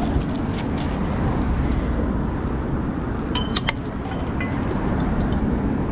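Steady wind and road rumble on the microphone while riding an e-bike in traffic, with a few light metallic clinks and rattles, a cluster of them about three and a half seconds in.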